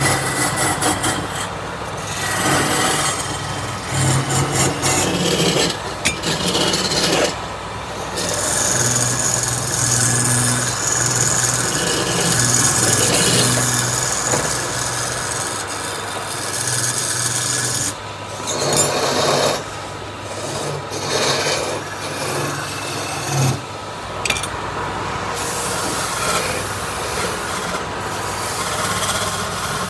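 Woodworking tools shaping palm wood: continuous scraping and rasping on wood, changing every few seconds, with a steady low hum through some stretches.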